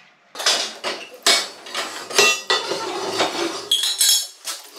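Steel pieces clinking and clattering: an irregular run of sharp metallic knocks, some ringing briefly, mixed with scraping.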